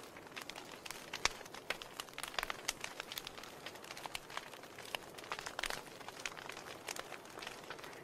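Wood fire crackling in an open fireplace: irregular sharp snaps and pops over a soft hiss.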